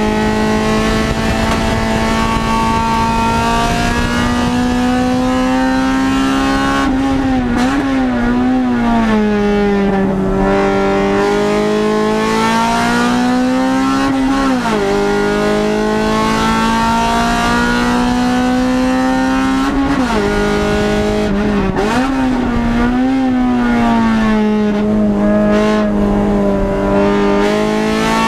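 Engine of a stripped-out Honda Civic race car heard from inside the cabin, running hard at high revs on track. Its pitch climbs steadily under acceleration and drops at each gear change, with quick up-and-down rev blips around 7 seconds and again around 20 seconds as the driver brakes and downshifts.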